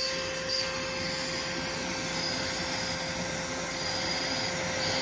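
Uproot Clean pet grooming vacuum running steadily with a constant hum and whine, sucking hair through its hose as the deshedder head is drawn through an old English bulldog's short coat, with a few brief brushing strokes.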